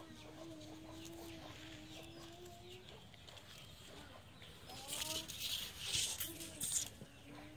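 A chicken calling from the yard: one long drawn-out call lasting about three seconds, then shorter rising calls later. About five seconds in, a louder burst of rustling and handling noise runs for about two seconds.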